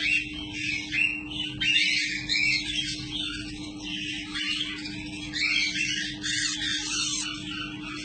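Newborn parrot chick giving rapid, high-pitched begging cheeps while being hand-fed through a feeding tube, over a steady low hum.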